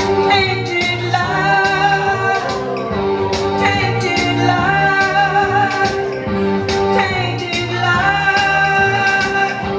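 Music with a steady drum beat and singing.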